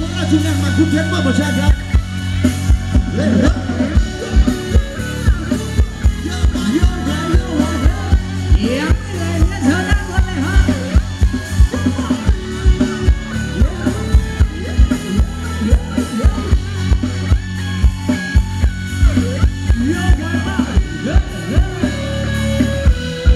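Live Thai ramwong dance band playing: a steady drone for about the first two seconds, then a fast, regular drum beat comes in under a singing voice and melody, and the beat drops out near the end.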